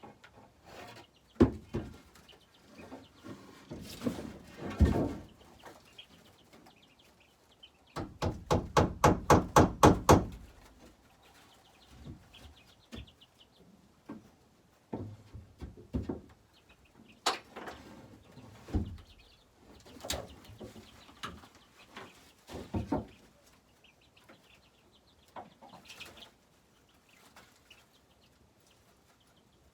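Hammer driving a nail into a wooden roost board: a quick even run of about nine strikes near the middle, with scattered knocks and thumps of wood being handled before and after. Chickens cluck quietly in the background.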